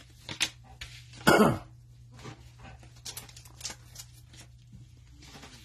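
Glossy Panini Mosaic football cards being shuffled from front to back of a small stack, a run of soft clicks and slides, with one short cough about a second and a half in.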